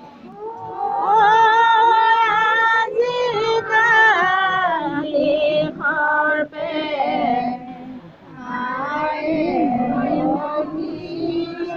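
A high voice singing an Assamese devotional song in the diha naam style: ornamented, gliding phrases with short breaks between them, over a steady held note underneath.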